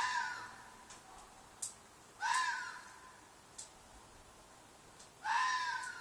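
Fox screaming: three harsh shrieks two to three seconds apart, each jumping up sharply and then sliding down into a trailing tail. The shriek is taken for a fox's mating call.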